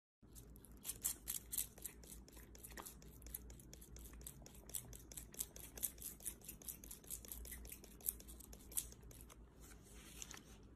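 A faint, rapid run of small dry clicks, several a second, over a low hum, thinning out near the end.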